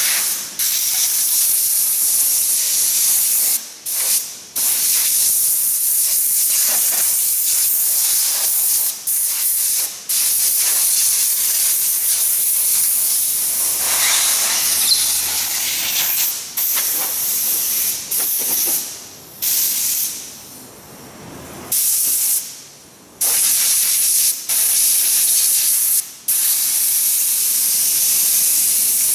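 Loud hissing spray in long bursts with brief pauses.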